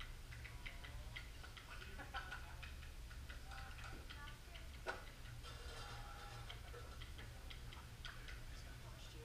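Light, irregular clicks and taps, one sharper one about five seconds in, over a low steady hum, with faint murmured voices in the background.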